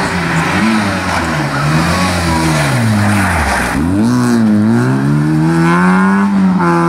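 Peugeot 106 rally car engine, with its revs falling away as it brakes into a tight bend. About three and a half seconds in, it accelerates hard out of the bend, with one gear change along the way, and its revs climb.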